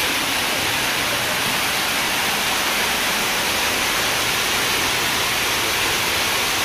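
Heavy rain falling steadily: a dense, even hiss.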